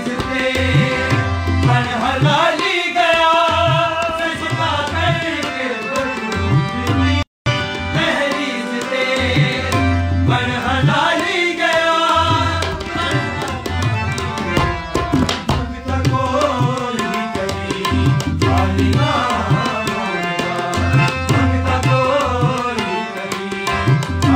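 Harmonium-accompanied devotional singing in the qawwali style, a man's voice carrying a wavering melody over the harmonium's held reed chords, with hand percussion beating a steady rhythm underneath. The sound cuts out for a split second about seven seconds in.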